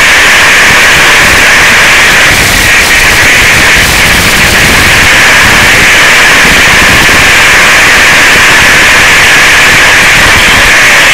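Loud, steady radio static: the hiss of an analog FPV video receiver's audio output, with no clear sound beneath it.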